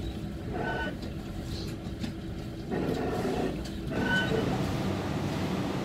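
Railway platform noise: a steady low rumble under passing voices and suitcases being wheeled along. Two short, high beeps sound about a second in and again about four seconds in.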